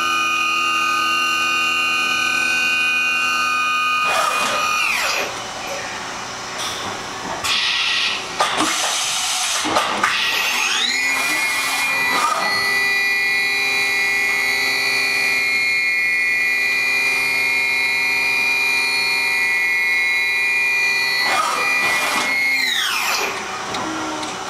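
Makino S33 machining center's spindle whining at speed. It winds down about four seconds in, then comes a noisy stretch with a couple of sharp knocks. It spins back up, runs steady, and winds down again near the end.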